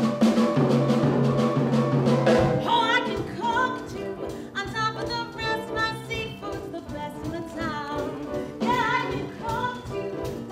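Musical accompaniment holding loud chords for about two and a half seconds, then a woman's voice comes in singing a show tune over it.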